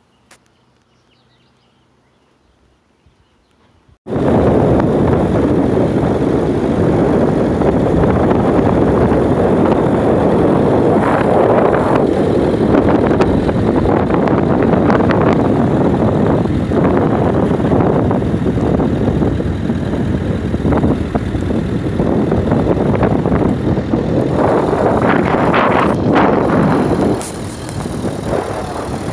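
Wind buffeting the microphone: a loud, unsteady rush that starts suddenly about four seconds in and eases a little near the end.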